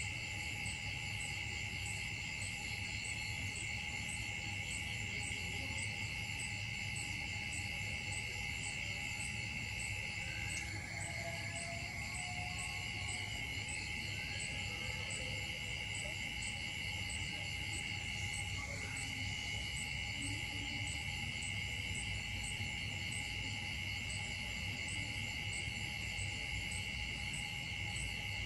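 Steady, high-pitched chorus of insects droning without a break, with a fast even pulsing in its highest notes. A few faint short calls stand out briefly about halfway through.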